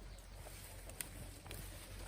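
Faint scattered clicks and knocks over a low steady hum, with one sharp click about a second in.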